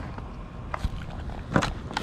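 A few scattered sharp taps and clicks, about four in two seconds, over a steady low rumble.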